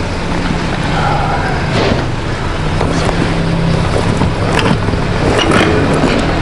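BMW R1200GS Adventure's boxer-twin engine running steadily while the bike is ridden, with wind noise rushing over a helmet-mounted microphone.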